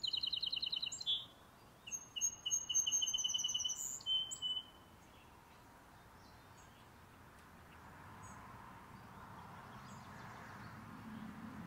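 A songbird sings two short songs made of fast trills, the first right at the start and the second a second or so later, ending about four seconds in. After that only faint outdoor background noise remains, swelling slightly near the end.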